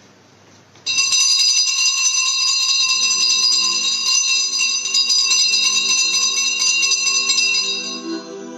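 Altar bells shaken in a continuous bright jingling ring that starts suddenly about a second in and fades near the end, marking the blessing with the monstrance. Soft instrumental music comes in underneath about three seconds in.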